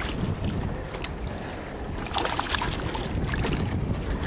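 Wind buffeting the microphone over choppy lake water, with splashing from a hooked wiper (hybrid striped bass) thrashing at the surface beside the boat as it is netted, strongest about two seconds in.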